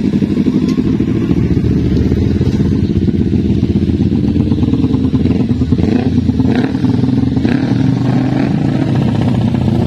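Several motorcycle engines idling together, with the revs rising and falling briefly about halfway through.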